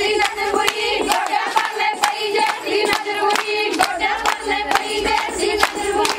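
Group of women singing a Punjabi boli together, with steady rhythmic hand-clapping keeping the beat for giddha dancing.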